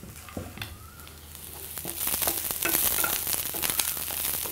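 Cubed brinjals and onions sizzling in hot oil in a frying pan, stirred with a wooden spatula that scrapes and knocks against the pan. The sizzling gets louder about two seconds in as the stirring gets going.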